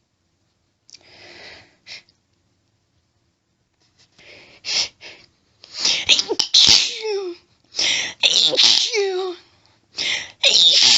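A woman's allergic sneezing fit. Hitching breaths build up from about four seconds in, then comes a rapid run of forceful sneezes in quick groups of two or three, several ending in a voiced cry that falls in pitch.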